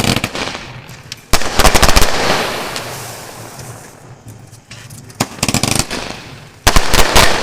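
Fireworks going off in rapid volleys of sharp cracks, each volley fading away. The loudest volleys come about a second and a half in and near the end, with a shorter one around five seconds in.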